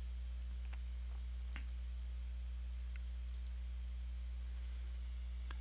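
Steady low electrical hum with about five faint computer-mouse clicks scattered through it.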